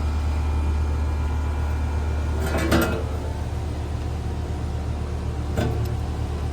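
Outdoor AC condensing unit running steadily with a low hum from its compressor and condenser fan, back in operation after a failed capacitor was replaced. A brief clatter comes about two and a half seconds in, and a short click near the end.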